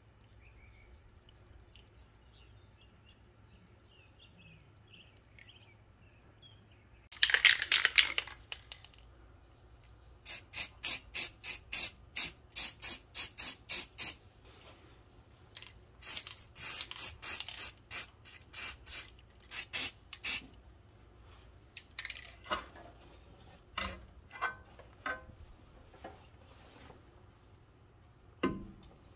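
Aerosol can of Rust-Oleum High Heat spray paint: a loud hiss of spray about seven seconds in. Then a run of rapid, regular rattles, about three a second, as the can is shaken. A second run follows, then scattered short bursts and clicks.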